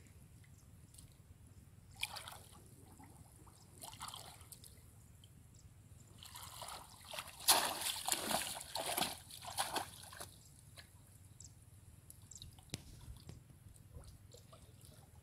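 Shallow muddy water splashing and sloshing as a bamboo plunge-basket fish trap is pushed down into it. There are a couple of single splashes first, then a few seconds of heavy splashing midway, and only faint drips and sloshes after.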